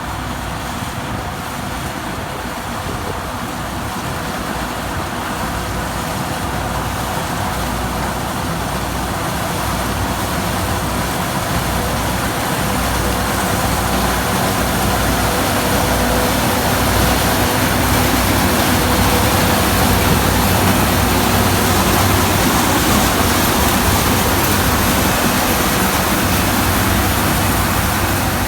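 New Holland TX34 combine harvester running steadily under load, its engine and threshing gear making a dense steady drone that grows gradually louder as the machine comes closer.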